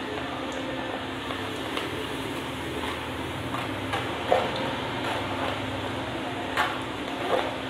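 Moong dal deep-frying in hot coconut oil inside a mesh strainer: a steady sizzle as the oil foams up while the dal's moisture boils off. A few light clinks of a steel spoon against the strainer as it is stirred, about four and six and a half seconds in.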